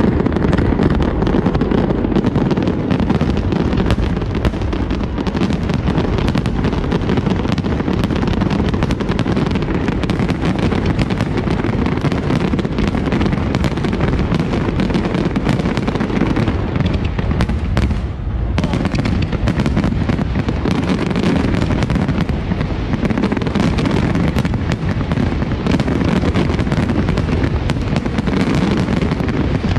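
Large aerial fireworks display: a dense, unbroken barrage of shells bursting, many sharp reports running together over a deep rumble, with a brief dip about eighteen seconds in.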